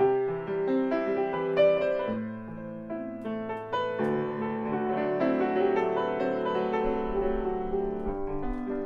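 Steinway & Sons Model M grand piano played slowly, chords ringing and overlapping with a low bass note held from about two seconds in almost to the end.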